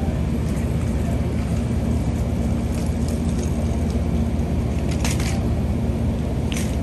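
Steady low diesel rumble and hum from a standing Amtrak passenger train, with two short knocks near the end.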